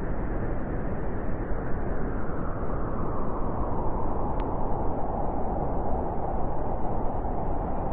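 Winter storm wind blowing steadily as a rushing noise. A whistling tone near the middle of its range grows stronger about halfway through, and a single faint click comes about halfway.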